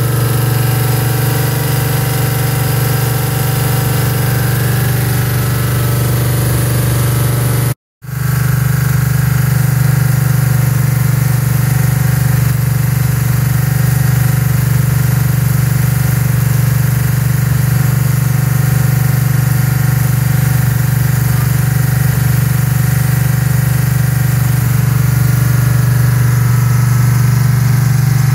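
Ford 428 Cobra Jet FE V8 running steadily on an engine run stand through a pair of mufflers while it is run in (break-in). The sound drops out for a moment about eight seconds in, then the same steady engine note resumes.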